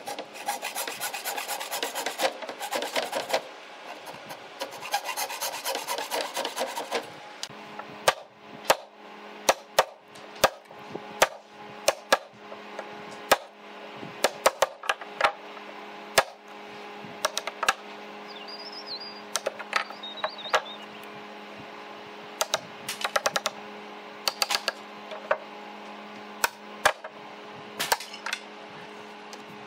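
Wood being abraded by hand in quick back-and-forth strokes for about seven seconds, then a mallet striking a wooden-handled chisel that chops into a small wooden block: sharp knocks, singly and in short quick runs, to the end.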